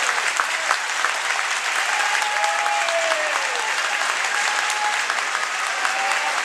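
Arena crowd applauding steadily, a dense patter of many hands clapping, with a few voices calling out over it around the middle.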